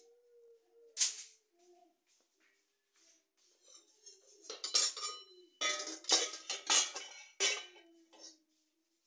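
Steel pots, cups and utensils clanking and clinking as dishes are handled in a kitchen sink. There is one sharp clank about a second in, then a quick run of clanks and scrapes, with ringing metal, from about four and a half seconds to eight seconds.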